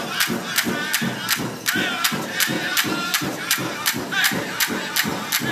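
Powwow drum group beating the big drum at an even pulse of about three strokes a second, with the singers' high voices wavering over it, for the men's traditional dance.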